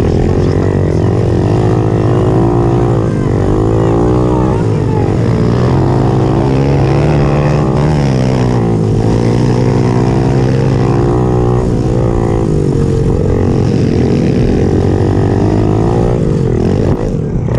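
Pitbike's small single-cylinder engine heard close up from the bike, revving up and down again and again as the rider accelerates, shifts and rolls off through the turns, with wind noise on the microphone.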